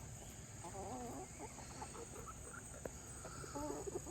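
Chickens clucking softly, a short run of calls about a second in and another near the end, over a steady chorus of insects.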